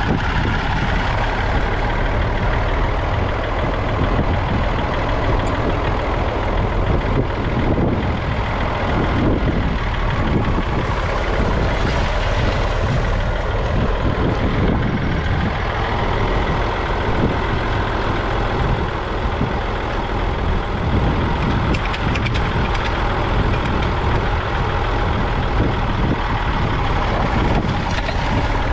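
1964 Massey Ferguson 35X's 2.5-litre three-cylinder diesel engine running steadily under load as the tractor pulls a two-furrow mounted plough through the soil.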